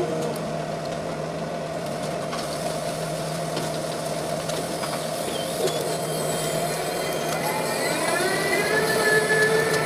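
Tower crane's electric drive heard from the operator's cab: a steady mechanical hum, then a whine that rises in pitch about three quarters of the way through and holds as the crane's motor speeds up to move the jib.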